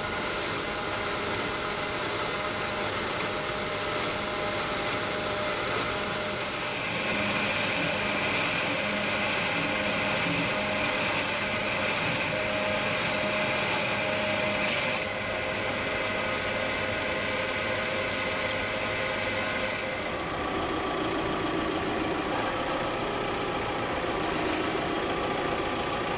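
Machinery running steadily, a continuous hum with several held tones; the sound shifts about seven seconds in and changes again about twenty seconds in.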